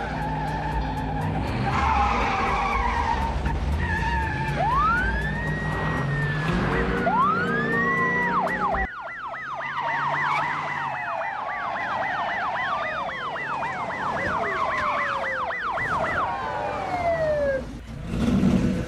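Police car sirens: a couple of long rising wails, then a fast yelp cycling about three times a second for several seconds, with other siren tones gliding downward. Car engines run underneath in the first half.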